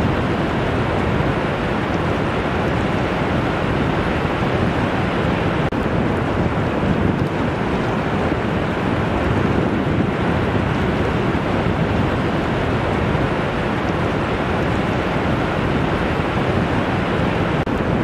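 Ocean surf washing in over a flat sandy beach, a steady rush of noise without breaks, with wind buffeting the microphone.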